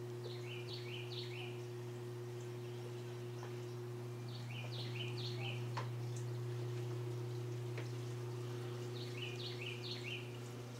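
A steady low hum runs throughout, while a bird sings a short phrase of quick chirps three times, about every four and a half seconds.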